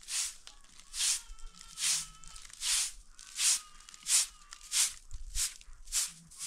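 A short handleless straw broom swept across a concrete slab in quick, regular strokes, about three swishes every two seconds, coming slightly faster near the end.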